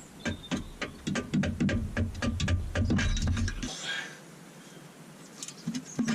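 Rapid run of short clicks and knocks from hand tools on the car's rear suspension, about four a second, pausing about two-thirds of the way through and starting again near the end.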